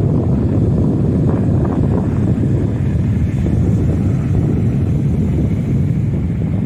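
Strong wind buffeting the microphone over rough sea surf, a steady low rumbling noise throughout.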